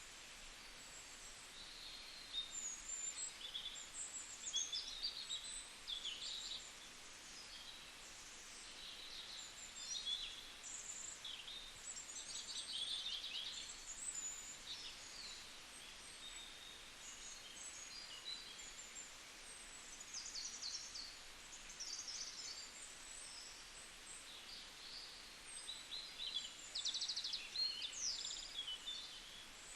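Several small birds chirping and trilling on and off, short high calls overlapping one another, over a faint steady background hiss.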